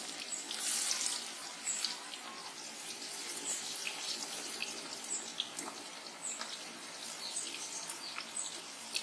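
Onion pakodas deep-frying in hot oil in a kadai: a steady sizzle sprinkled with small pops and crackles.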